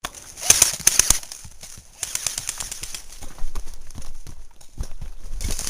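Footsteps crunching and rustling through dry woodland leaves and twigs: an irregular run of crackles and snaps, loudest about half a second to a second in.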